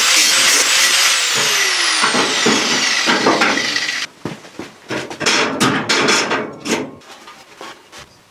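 Angle grinder working steel, then switched off about a second in, its whine falling as the disc spins down. After a sudden break come several short scraping strokes.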